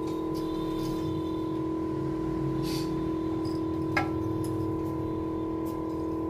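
A steady electrical hum of several fixed tones, with faint scratching and light ticks as a cutting wire is drawn through the glue between a phone screen's cover glass and the display on a heated separator plate. One sharp click comes about four seconds in.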